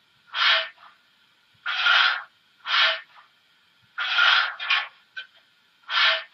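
Märklin HO BR 50 model steam locomotive's sound effect: hissing steam puffs, six short ones at uneven spacing, about one a second, with quiet between.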